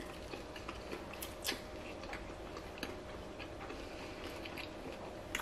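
Faint mouth and chewing sounds of a person eating a bite of a Korean cheese corn dog: a few scattered sharp clicks, over a faint steady hum.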